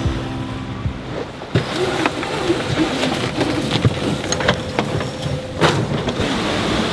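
Music fades out about a second and a half in. Then comes the noisy sound of a sailboat under way: a steady rush of wind and water, with scattered knocks and clicks.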